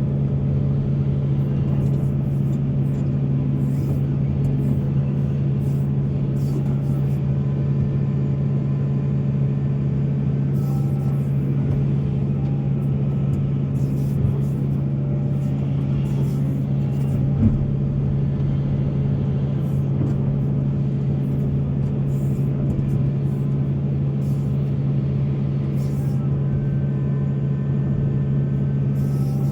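Large diesel excavator engine running at a steady, unchanging speed, with one brief knock a little past halfway.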